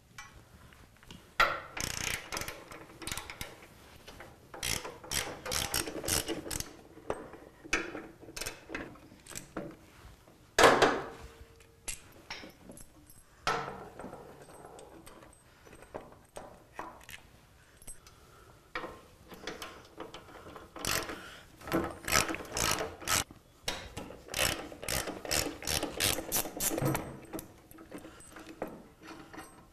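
Hand ratchet clicking on a motorcycle's rear shock mounting bolts, in several runs of quick clicks, the longest in the last third. A single louder knock comes about a third of the way in.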